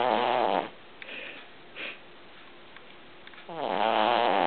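Cavalier King Charles spaniel puppy snoring in its sleep: a long, pitched snore trails off at the start, a soft breath follows, and the next snore begins about three and a half seconds in.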